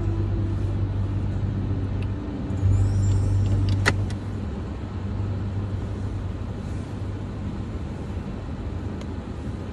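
Car running, heard from inside the cabin: a steady low hum, with a single sharp click just before four seconds in, after which the hum is quieter.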